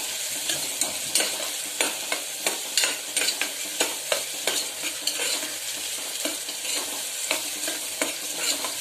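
Chopped onion and whole spices sizzling in hot oil in an aluminium pressure cooker, stirred with a spoon that scrapes and knocks against the pot about once or twice a second. The onion is frying to a reddish colour.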